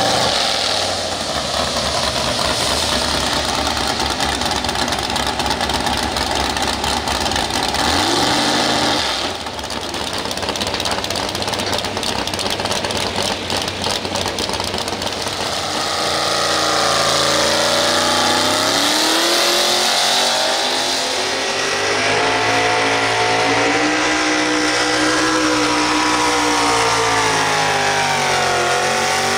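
Naturally aspirated two-wheel-drive pulling truck's engine running hard through open exhaust stacks while it hauls a weight-transfer sled. About eight seconds in the pitch climbs, and through the second half it sags and climbs again and again as the load builds.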